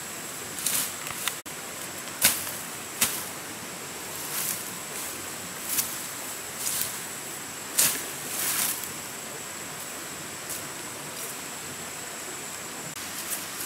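Machete cutting through fern stems and undergrowth: a handful of sharp chops, the loudest about two and eight seconds in, with softer swishes and rustling of fronds between them, over a steady hiss and a faint high whine.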